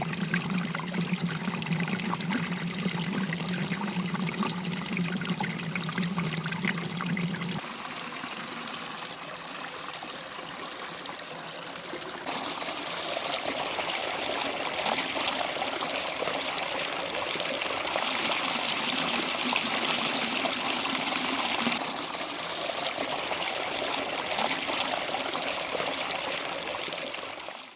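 Stream water flowing and trickling. It drops quieter about 8 s in, grows louder and brighter about 12 s in, and cuts off at the end.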